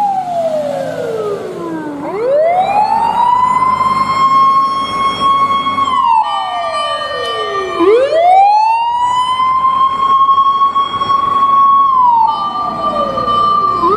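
Osaka Siren fire-engine siren sounding a wail. A held high tone drops over about two seconds, then sweeps back up and holds high for about four seconds before dropping again, twice through. A second, steady higher tone sounds briefly during each fall.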